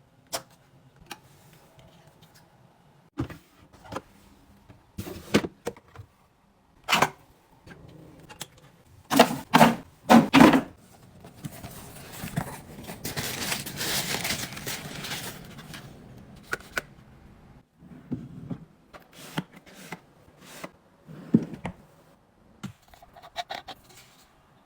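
Hands handling and setting down containers and packaging: a series of light knocks and clicks, a cluster of louder knocks about ten seconds in, and a few seconds of rustling just after.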